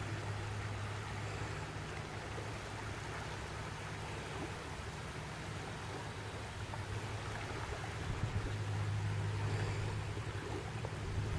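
Steady low hum over a faint even hiss of outdoor noise, a little louder in the last few seconds.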